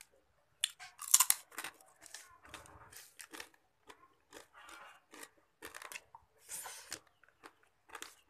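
A person eating a Padang rice meal by hand, chewing and crunching: irregular sharp crunches and smacks with short quiet gaps between them.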